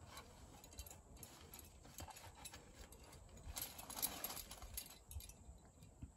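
Scattered small clinks and knocks from a lead climber's rack of metal gear and her moves on the granite, busiest from about three and a half to five seconds in.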